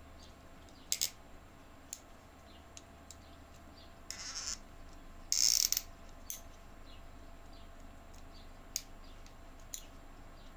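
Small metal extruder parts handled and fitted by hand: a few sharp light clicks, with two brief scraping bursts about four and five and a half seconds in, the second the louder, over a steady low electrical hum.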